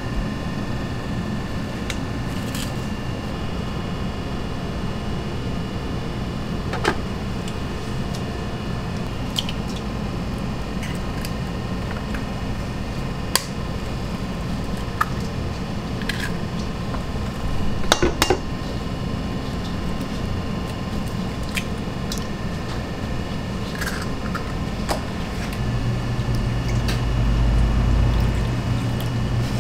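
Eggs cracked against a stainless steel mixing bowl, a few sharp taps spread out, then milk poured into the bowl from a carton near the end, over a steady background hum.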